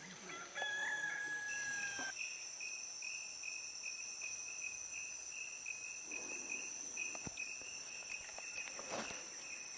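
Tropical forest insects trilling, a steady pulsing high trill over a continuous higher whine. In the first two seconds a held call of about a second and a half, rising slightly at its start, sounds over them.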